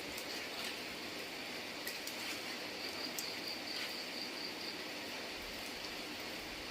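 Steady rain falling, with scattered sharp drip taps.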